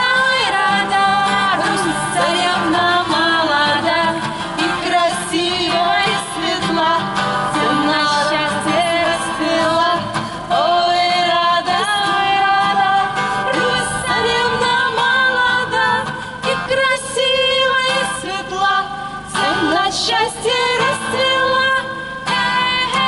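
A woman singing a song with instrumental accompaniment.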